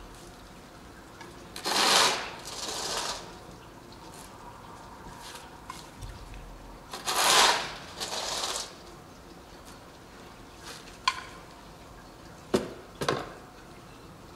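Plastic shovel scraping along asphalt as it scoops from a heap, twice: each time a loud scrape followed by a shorter, softer one. A few sharp knocks near the end.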